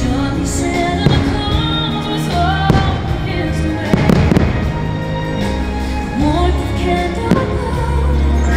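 Fireworks show music playing while aerial firework shells burst several times overhead with sharp bangs and crackle. The densest cluster of bursts comes about four seconds in.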